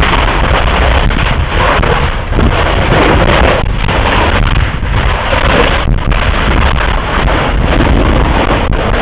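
Deafening roar of lava blasts where the flow enters the sea: a continuous rushing noise that surges and dips every second or two, with heavy wind buffeting on the microphone.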